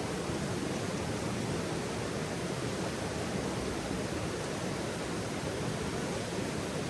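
Steady rushing noise of an outdoor campfire scene, even and unbroken, with no distinct crackles or pops.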